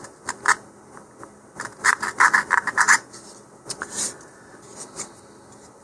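Small hobby file scraping along the edge of a wooden rocket fin: a few single strokes, then a quick run of about half a dozen strokes about two seconds in, then a few more scattered strokes.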